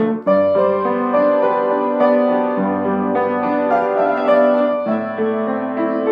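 Instrumental music led by piano, with sustained notes and chords that change every second or so.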